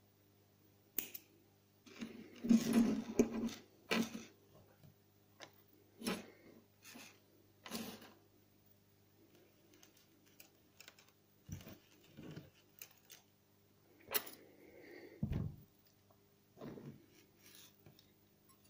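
Small handling noises of fishing line and tackle being worked by hand on a wooden tabletop: scattered clicks and rustles with a few soft knocks, loudest about three seconds in.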